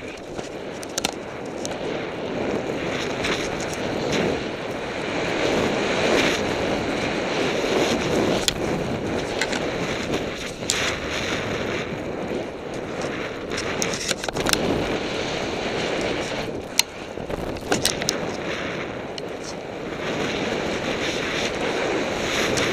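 Snowboard sliding and carving down a snowy run, the board hissing and scraping over fresh and tracked snow, with wind buffeting the microphone. Occasional sharp knocks and clicks break through the steady rush.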